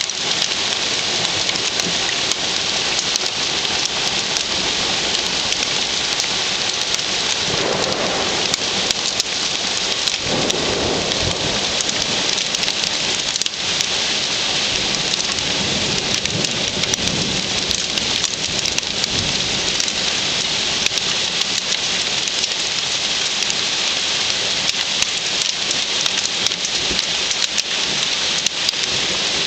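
Hail pelting hard surfaces in a heavy hailstorm: a dense, steady clatter of countless small impacts. A couple of low rumbles swell up about eight and eleven seconds in.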